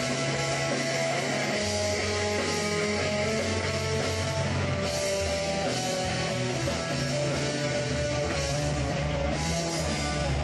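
A rock band playing, with guitars over steady bass notes.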